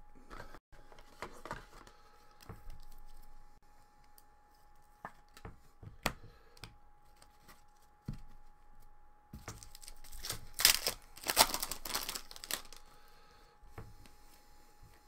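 A foil hockey card pack being torn open, a loud crinkling tear about two-thirds of the way in, with scattered soft clicks and rustles of cards being handled and shuffled around it.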